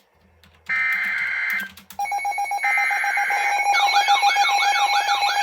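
NOAA Weather Radio SAME alert header: short, harsh, buzzing digital data bursts, the second one about a second long. About two seconds in, a steady alarm tone starts and a third burst plays over it. Near the middle, a fast, repeating warbling siren-like tone joins in, signalling an incoming warning.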